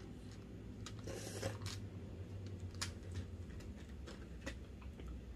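Small scattered clicks and taps of plastic press-on fake nails and their clear plastic cases being handled, with a brief scratchy rustle about a second in, over a low steady hum.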